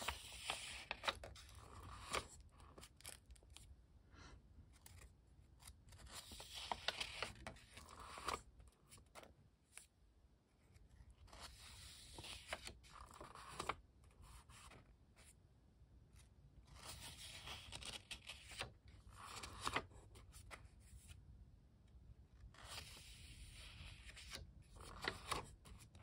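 Pages of a Pentalic 4x6 sketchbook being turned by hand: paper rustling and sliding in five separate bursts, each a second or two long, about every five seconds.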